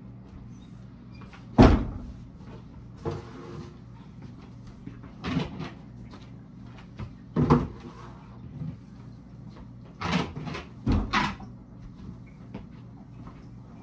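Irregular knocks and clunks from housekeeping work in a small bathroom: a wooden door swung open, then things handled and a long-handled mop or broom knocking about. The loudest knock comes about two seconds in, with a short hissing rustle about three seconds in, all over a steady low hum.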